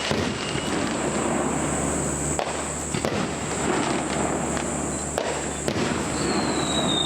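Fireworks display: dense, continuous crackling with several sharp bangs, over a steady low hum. A single falling whistle begins near the end.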